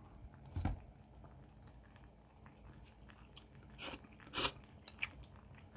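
Biting and chewing a strand of Chapagetti instant noodle that is still undercooked and firm. Quiet scattered clicks, with two louder bites about four seconds in.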